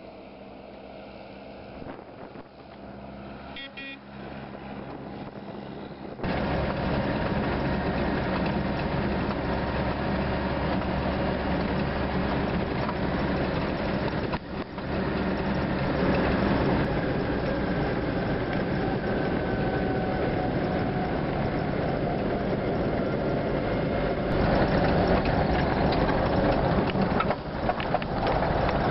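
A quiet, steady engine hum, then about six seconds in an abrupt change to the loud, steady engine and road noise of an ex-military Land Rover driving along a dirt road, picked up from its bonnet.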